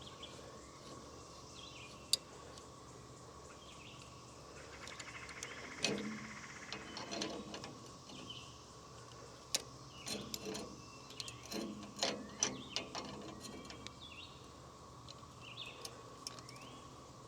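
Faint, scattered metallic clinks and knocks of wrenches working on a bandsaw sawmill's saw-head adjustment nuts and bolts, with a quick run of rapid ticks about five seconds in.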